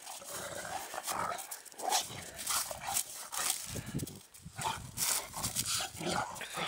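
Three dogs play-fighting in snow, with irregular growls and snarling bursts as they mouth and wrestle.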